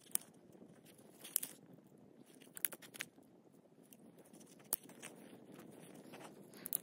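Small campfire of dry twigs and tinder crackling: about six sharp, irregular pops, roughly one a second, over a low steady background.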